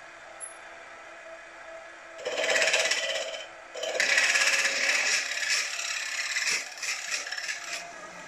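Milling machine spindle running with a low steady hum, then a twist drill cutting into a metal casting: a loud scraping hiss for about a second, a brief pause, then about four more seconds of cutting that tails off with small clicks near the end. The hole is being drilled undersize, ready to be reamed to 5/16 inch later.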